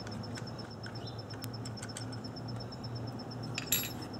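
Faint handling sounds as an ignition coil pack is worked loose from its spark plug well: light clicks, then a brief sharp scrape or click about three and a half seconds in. Under them is a steady low hum.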